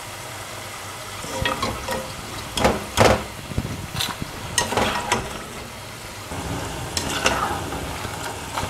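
Shakarpara dough pieces sizzling as they deep-fry in hot oil, stirred with a metal slotted spoon that clinks against the pan several times.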